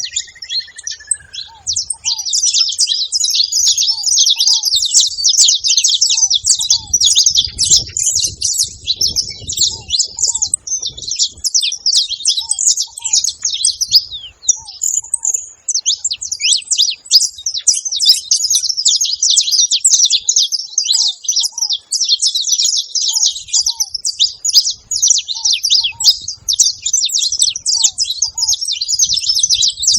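Saffron finches singing in a dense, almost unbroken run of quick, high chirping notes. Under them, short low notes in pairs repeat every second or two: the calls of ground doves.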